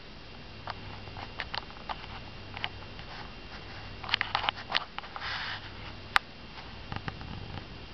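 Scattered light clicks and taps, like a kitten's claws on a hard floor as it walks, bunching up about four seconds in, followed by a short sniff-like hiss and one sharper click.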